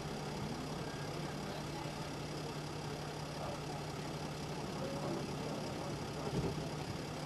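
Vehicle engine idling steadily, with faint distant voices and a brief thump about six seconds in.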